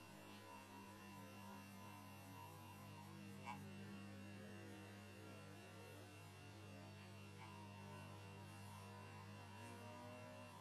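Near silence: a faint, steady low electrical hum with a little hiss, and one small tick about three and a half seconds in.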